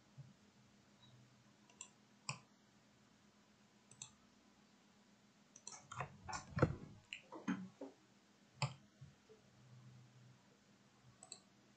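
Faint computer mouse and keyboard clicks: single clicks a second or two apart, with a quick run of several clicks about six to seven and a half seconds in.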